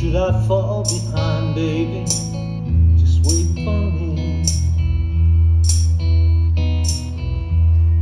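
Live band playing a slow instrumental passage: guitars over sustained bass notes, with a percussion hit about once a second and a wavering lead melody near the start.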